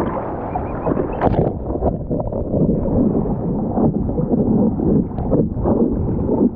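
Seawater sloshing and splashing around a camera held at the water's surface, with wind buffeting the microphone and a sharper splash every second or so.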